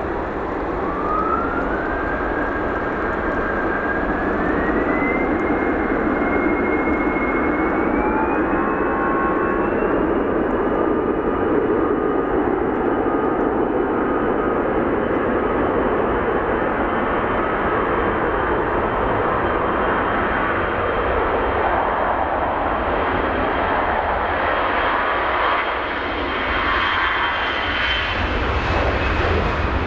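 Airbus A321-211's two CFM56-5B turbofan engines at takeoff thrust during the takeoff roll: a jet roar with a whine that rises in steps over the first ten seconds as the engines spool up, then holds steady.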